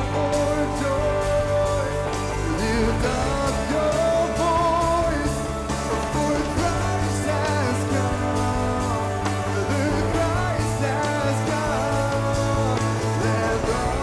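Live performance of a male lead singer with a band of electric guitars and bass and a string section, the sung melody carried over held bass notes that change every few seconds.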